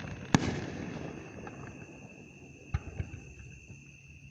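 A firework bang just after the start, its rumble fading away, then two fainter pops close together near three seconds in. Crickets chirr steadily underneath.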